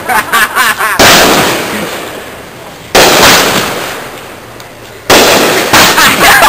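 Fireworks going off: a loud bang about every two seconds, each trailing off slowly, with quicker bangs in the last second or so.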